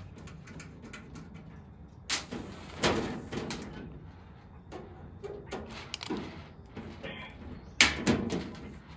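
Scrapes and clunks of the sheet-metal back panel of a Harvest Right freeze dryer being worked loose, with a sharp knock about eight seconds in.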